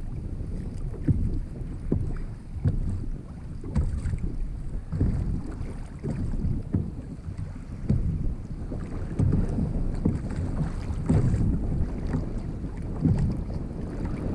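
Wind buffeting the microphone and water slapping against a fishing kayak's hull, an uneven low rumble with irregular gusts and knocks.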